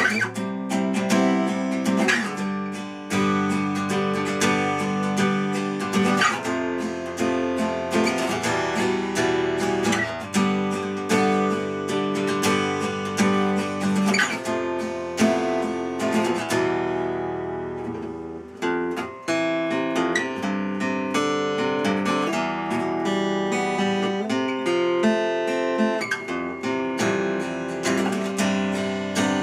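Cort L100NS acoustic guitar played solo: a steady stream of plucked notes and chords. About seventeen seconds in, a chord is left to ring and fade before the picking resumes.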